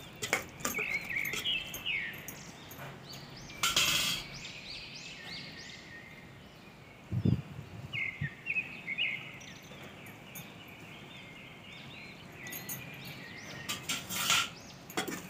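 A metal spoon clicking and scraping in an aluminium pressure cooker full of chopped vegetables, near the start and again near the end. In between, clusters of short high chirps, with a louder clatter about four seconds in.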